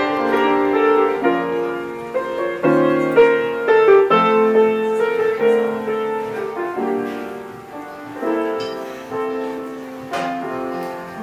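Grand piano played live: a melody over held chords, the notes changing every half second or so.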